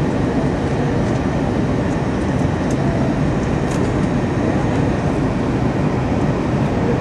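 Steady low rumble inside the cabin of an Airbus A321-231 airliner, the noise of its IAE V2500 engines and rushing air during the landing, holding an even level throughout.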